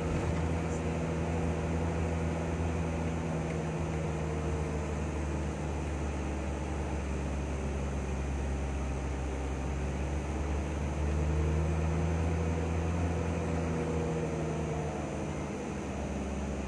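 Vehicle engine and road noise heard from inside the cabin while driving slowly, a steady hum with a low rumble. Around two-thirds of the way through, the engine note rises a little, then eases off.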